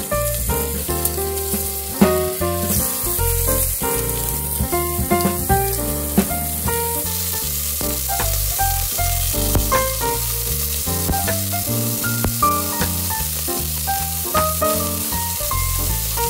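Beef chunks sizzling as they sear in hot oil in a stainless steel pot, with background music playing over it.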